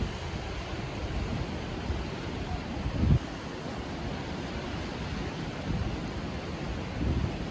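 Wind buffeting the microphone over a steady rush of sea surf, with a strong low gust about three seconds in and another near the end.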